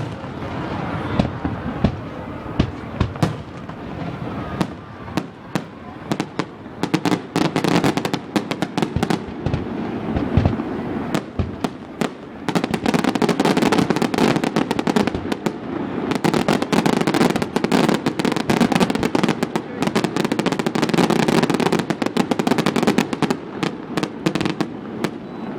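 Fireworks display: scattered sharp bangs and pops that thicken into dense, rapid crackling through the second half.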